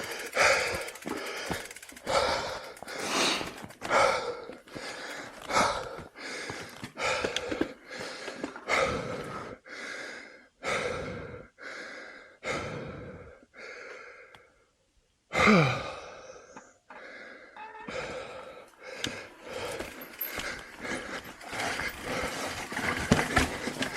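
A mountain biker's heavy, rhythmic breathing, about one breath a second, after a hard effort. It breaks off briefly a little past the middle, then resumes with a louder exhale.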